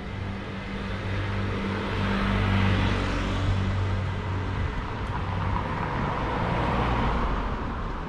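Street traffic: vehicles passing close by over a steady low engine hum, with two swells of engine and tyre noise, a couple of seconds in and again near the end.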